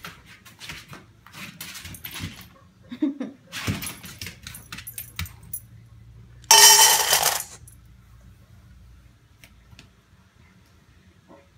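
Dry dog kibble rattling and clicking in a metal measuring cup as it is scooped, then poured into a stainless steel dog bowl in one loud rush lasting about a second, a little past halfway.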